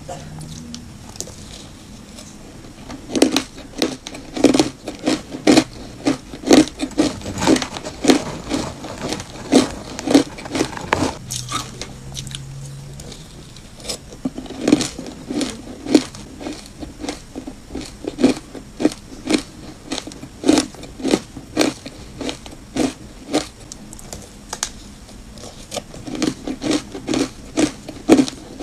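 Ice dusted with matcha powder being bitten and chewed: quick runs of sharp, crisp crunches, several a second, with a couple of short pauses between mouthfuls.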